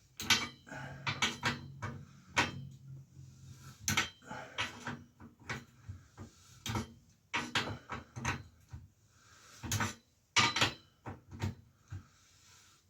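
Irregular metallic clinks and knocks of hand tools against bicycle parts, a couple of dozen sharp strikes at uneven intervals.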